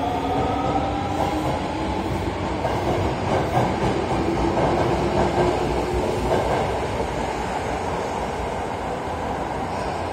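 Osaka Metro Midosuji Line subway train moving through a station. Its motor whine falls in pitch over the first six seconds or so, as a train does when slowing, over a steady rushing rumble of wheels on rail.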